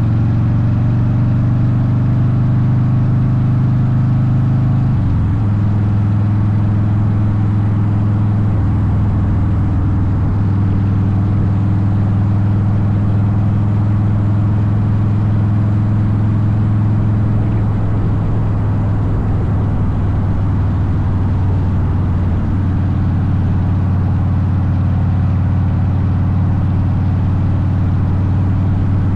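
Harley-Davidson Softail Deuce V-twin with Vance & Hines exhaust running steadily under way. Its note steps down in pitch about five seconds in, then holds steady.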